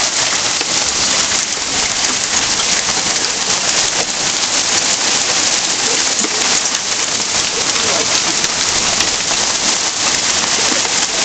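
Heavy rain falling hard in a steady downpour.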